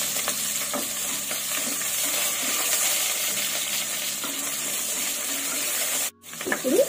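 Sliced onions and green chillies sizzling in hot oil and ghee in an aluminium pressure cooker, stirred with a wooden spatula. The sound drops out briefly about six seconds in.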